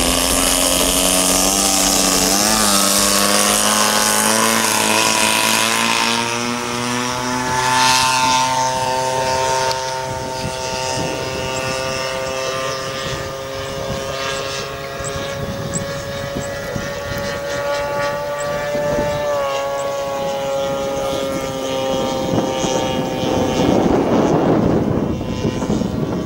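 A 40cc DLE two-stroke petrol engine on a radio-controlled model plane running at high throttle through the takeoff and climb: its pitch rises over the first several seconds, then holds fairly steady with small dips as the plane flies. A rush of noise swells near the end.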